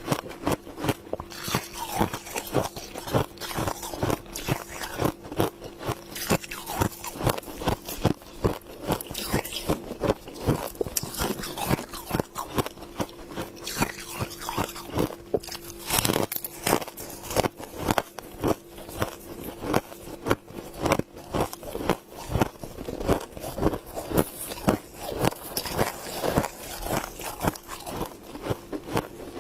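Close-up mouth sounds of someone biting and chewing a mouthful of humidifier frost: dense, crisp crunches, several a second, over a steady faint hum.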